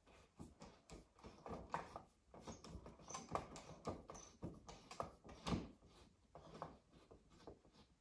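Screws being turned out of a Craftsman garage door opener wall button by hand: faint, irregular small clicks and scrapes of the screwdriver working in the screw heads.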